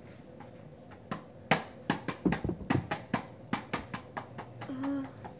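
A plastic video game case being handled, giving a string of sharp, irregular clicks and taps that start about a second in.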